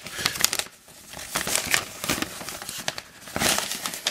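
Folded paper instruction sheet of a plastic model kit being unfolded and handled: dry crinkling and rustling in irregular crackles, with a brief lull about a second in and the loudest rustle near the end.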